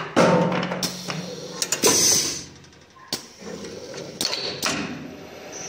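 Automatic wood copy lathe between cuts, unloading a finished chisel handle and clamping a new wood blank: a few loud hissing bursts and sharp clacks, the machine going quieter about halfway through.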